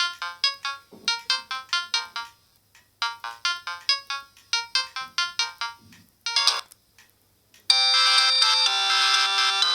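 A Samsung SGH E300 mobile phone playing its ringtones. First comes a quick run of short, bell-like notes at about four a second, then after a brief pause a similar run. Near the end a different, fuller tune with held chords starts.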